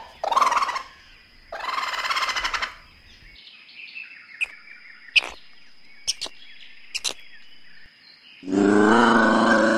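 A run of animal calls: a raccoon's short chittering bursts, then faint chirps and a few clicks, then near the end a loud, long, low call that holds its pitch, an ocelot's yowl.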